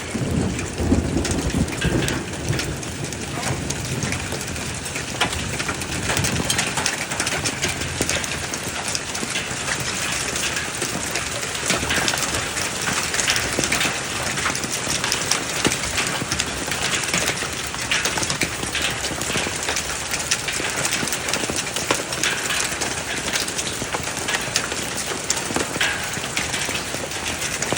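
Heavy storm of rain and hail pelting down, a dense steady patter with many sharp individual ticks of hailstones striking. A rumble of thunder dies away in the first second.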